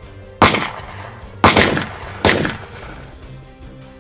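Three loud gunshot sound effects with long echoing tails, the first about half a second in, the next two about a second and a second and a half later, standing in for Nerf blaster shots over background music.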